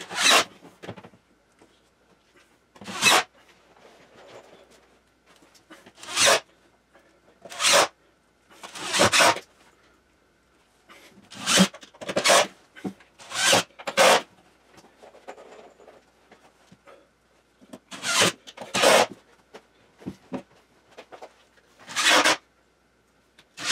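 Cordless drill driving screws into plywood in short rasping bursts, about a dozen of them, each under a second.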